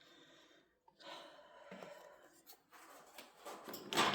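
Keycaps being handled and pressed onto a mechanical keyboard's switches: soft plastic clicks and rustling, with a louder burst of noise near the end.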